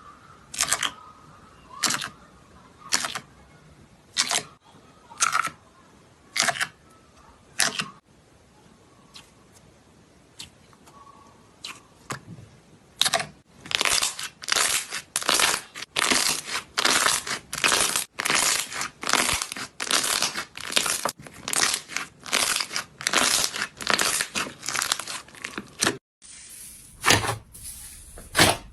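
Slime being squeezed and pulled, giving a run of sharp tearing, crackling sounds. They come about once a second at first, then, after a short quieter spell, about twice a second.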